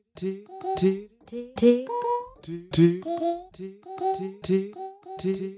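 A sampled vocal phrase ('didn't wanna') played through Logic Pro's Quick Sampler and Arpeggiator: short chopped sung syllables repeating in a quick rhythmic pattern, jumping between pitches.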